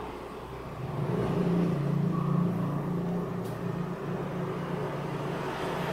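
A motor vehicle's engine running nearby, with a low hum that grows louder about a second in and then holds steady.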